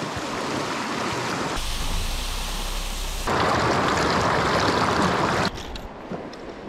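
Rushing water of a shallow river riffle pouring over rocks. It is heard in a few abrupt cuts and is loudest in the middle, then drops away suddenly about a second before the end to a quieter flow with a few faint clicks.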